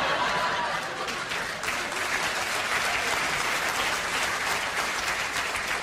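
Theatre audience applauding in reaction to a punchline, loudest in the first second and then holding steady.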